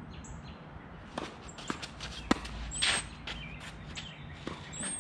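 Footsteps on a tennis court with a single sharp knock of a tennis ball about two seconds in, and birds chirping.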